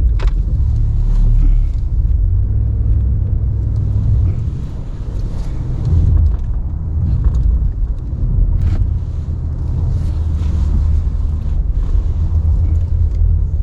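Ram 1500 Classic pickup's engine running steadily with a low rumble while the truck plows snow, easing off briefly about five seconds in.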